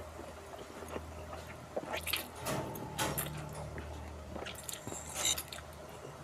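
Close-up mouth sounds of eating fried instant noodles: wet slurps as strands are sucked in off the fork, and chewing. Several short, sharp slurps stand out about two, three and five seconds in.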